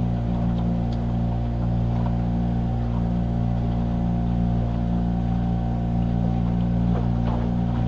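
Motorboat engine running at a steady speed, a constant low drone with no change in pitch.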